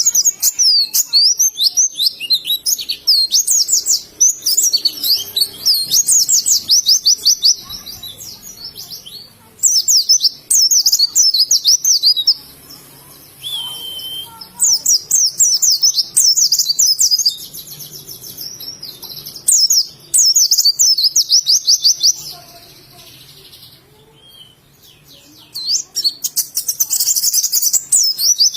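White-eye (pleci) singing: long phrases of rapid, high twittering notes, each a quick sweep, broken by short pauses and one longer pause about three-quarters of the way in.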